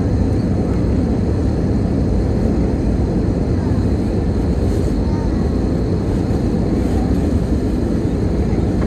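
Steady cabin rumble of an Airbus A320neo on its landing approach, heard inside the cabin from a window seat over the wing: the Pratt & Whitney geared-turbofan engines and the rush of airflow make an even, deep noise with no change.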